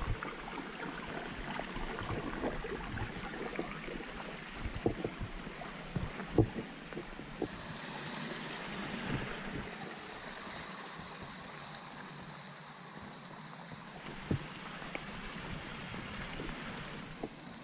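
Muddy rain runoff rushing down a small forest creek and spilling over rocks, a steady hiss that swells and fades as the walker passes. Rain is falling, and irregular footsteps thud on the wet trail.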